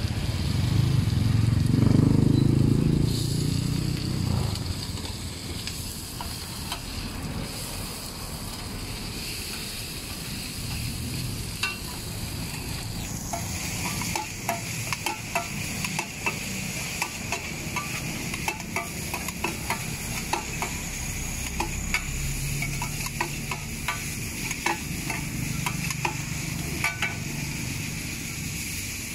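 Pad thai stir-frying in a large flat wok: a steady sizzle, with metal spatulas scraping and clacking against the pan. The clacks come thick and fast from about twelve seconds in. A louder low rumble fills the first few seconds.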